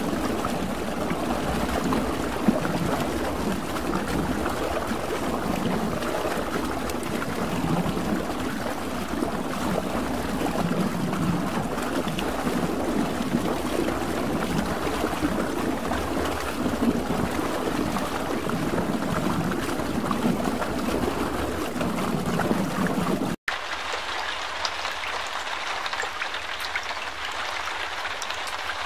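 Floodwater sloshing and rushing, an even wash of water noise with no single loud event. After a sudden break near the end it turns into a thinner, hissier wash of water.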